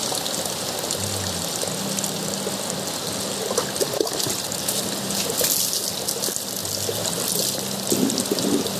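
Heavy rain falling steadily, with water trickling and dribbling close by.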